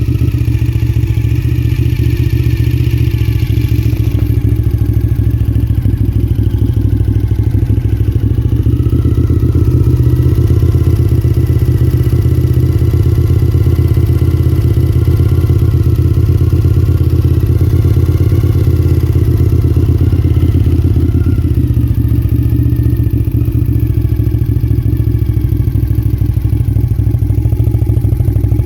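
2001 Suzuki TL1000S's 90-degree V-twin engine running steadily at low revs with a deep, pulsing beat. The revs rise slightly about nine seconds in and are held there, then settle back near the end.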